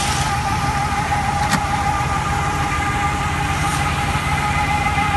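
Tractor engine running steadily to power a tractor-mounted grape-spreading machine, with a constant high whine over the rumble. A single sharp knock sounds about a second and a half in.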